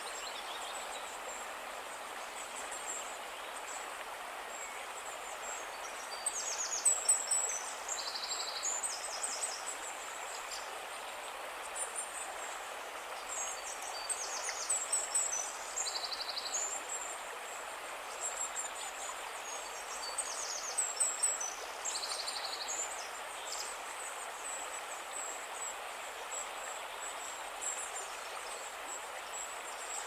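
Shallow stream flowing steadily over stones, a constant rushing hiss. A small songbird sings the same short, high chirping phrase three times, about every seven seconds, louder than the water.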